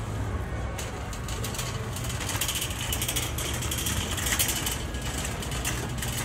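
Metal shopping cart being pushed, its wheels rumbling steadily and its wire basket rattling. The rattle grows busier and brighter from about two seconds in.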